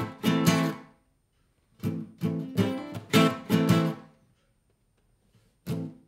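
Acoustic guitar strummed on an A minor chord in a rhythmic pattern. The strums are cut off short by muting the strings, so each group of strokes drops suddenly into silence.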